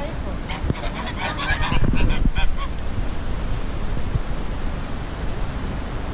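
Domestic geese honking, a quick cluster of calls about half a second to two and a half seconds in, over a steady noise of wind and water.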